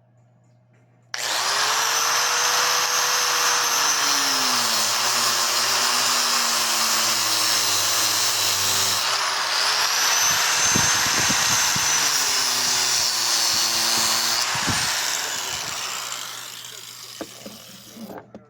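Electric angle grinder cutting into a steel can of green beans. Its whine starts about a second in, sags and recovers as the disc bites into the metal, then drops after the tool is switched off and winds down over a few seconds, with a few light knocks near the end.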